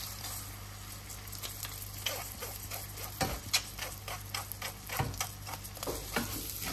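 Washed red lentils and basmati rice pattering and sizzling as they are tipped from a mesh sieve into a pan of hot ghee and onion, with a wooden spoon scraping and tapping the grains out of the sieve in short irregular strokes.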